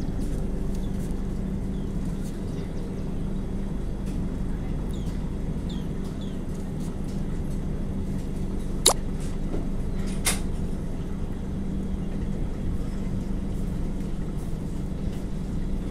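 Steady low machine hum with a constant drone, like an idling engine, with a single sharp click about nine seconds in.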